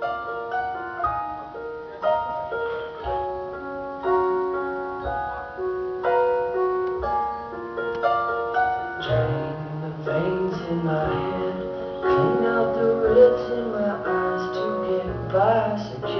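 Music with a melody of held notes stepping up and down; a bass line and fuller accompaniment come in about nine seconds in.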